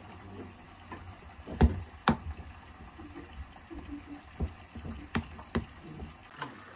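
A sharp knock about a second and a half in, followed by a plastic rice paddle tapping and scraping against a plastic container as cooked rice is mixed, in short irregular knocks.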